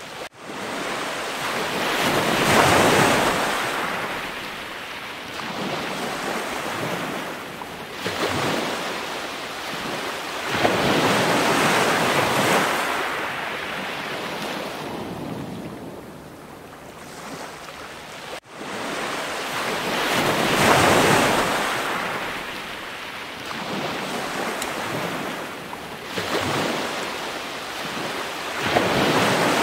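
Ocean surf: waves washing in and drawing back, swelling and fading every several seconds, with a sudden brief gap just after the start and again about two-thirds through.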